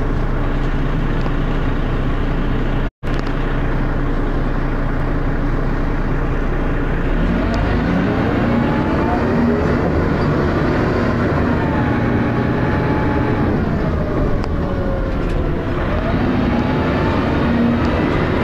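Dennis Arrow double-decker bus's diesel engine running steadily, then pulling away about seven seconds in. The engine and ZF automatic gearbox whine climbs, levels off, falls and climbs again as the bus works through its gears. The audio cuts out briefly near the start.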